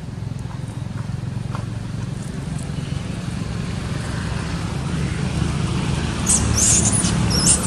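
Baby macaque giving a run of high-pitched, wavering squeals from about six seconds in, over a steady low rumble.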